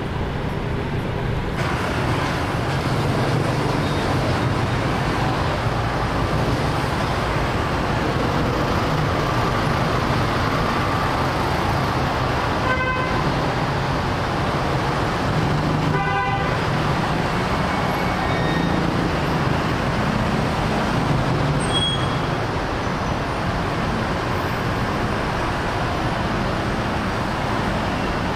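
Steady engine rumble of a car ferry and the vehicles idling on its covered deck. Two short horn toots sound partway through, about three seconds apart.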